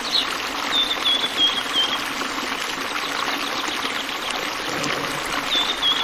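Steady rushing noise like running water, with short, high chirps: a run of four about a second in and another run near the end.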